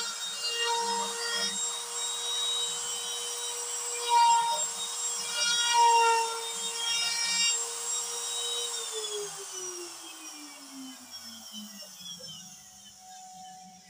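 Trim router used as the spindle of a CNC router, cutting into MDF: a steady high whine with cutting noise that swells and eases as the bit works. About two-thirds of the way through, the whine falls steadily in pitch and fades as the router is switched off and spins down.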